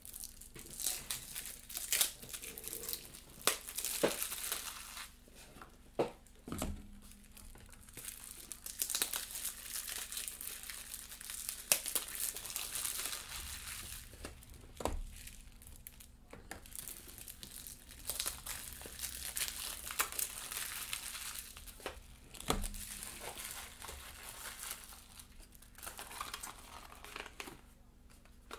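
Packaging of trading-card hobby boxes crinkling and tearing as it is unwrapped and opened by hand, with scattered sharp taps and knocks.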